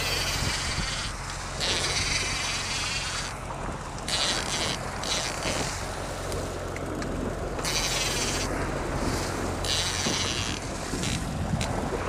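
Boat engine running steadily with a low hum, while wind buffets the microphone in gusts that come and go every second or two.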